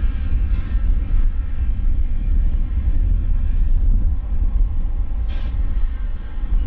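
LORAM switch rail grinder running with a steady deep rumble and a faint engine whine, and a short hiss about five seconds in.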